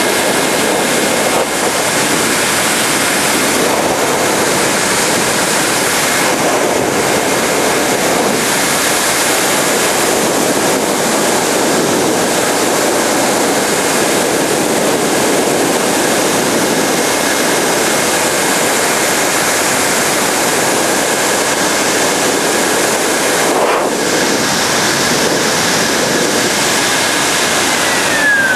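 Pet grooming blower (high-velocity dryer) blowing air through an Angora rabbit's wool: a loud, steady rush of air with a high motor whine. Near the end it is switched off and the whine falls in pitch as the motor spins down.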